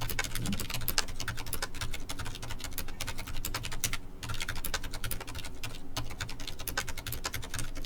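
Fast typing on a full-size Ducky ONE 2 mechanical keyboard with spray-lubed Cherry MX Silent Red linear switches. The keystrokes run in a dense, steady stream, with short pauses about four and six seconds in.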